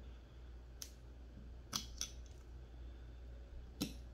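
A few short metallic clicks, four in all with the loudest near the end, as a Glock striker assembly is worked by hand into a Grey Ghost Precision pistol slide.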